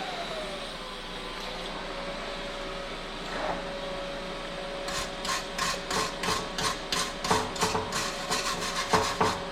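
Hand-tool scraping strokes on the metal of the motorcycle frame, about four a second, starting about halfway through. Before them, a faint whine drops in pitch and then holds steady.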